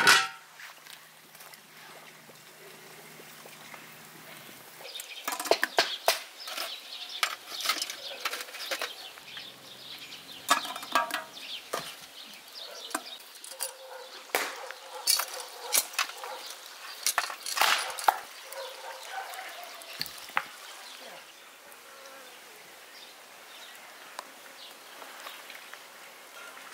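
A metal pot lid clanks onto a cooking pot at the very start. Then birds chirp in many short calls, busiest in the middle and thinning out near the end.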